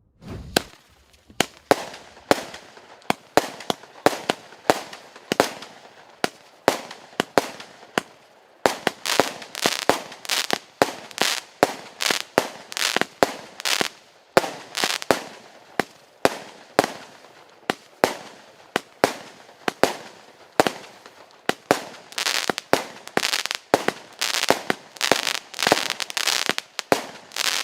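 A 32-shot, 0.6-inch consumer fireworks cake firing its shots one after another: a steady run of sharp bangs, about two a second, each with a short trailing tail.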